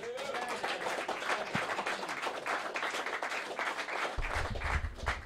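Audience applauding steadily with many hands clapping. About four seconds in, low thumps and rumble come through, from the microphone being handled.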